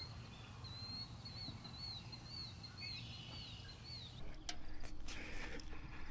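A bird singing a string of short, quick, up-and-down whistled notes, about two a second, over a low steady outdoor rumble. About four seconds in this gives way to closer sounds: a couple of sharp knocks and scuffing as bare hands grip and shift on the concrete wall of a silo.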